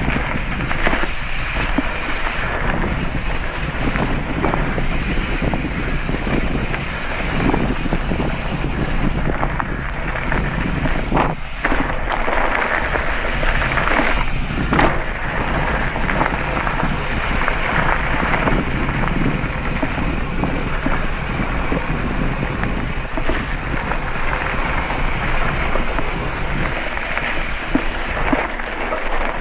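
Wind rushing over a helmet-mounted action camera's microphone while mountain biking, with the tyres rolling over a rough dirt and gravel track and the bike rattling in frequent short knocks.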